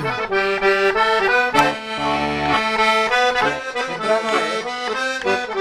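Small button accordion playing a tune, its held notes shifting every fraction of a second over sustained bass notes.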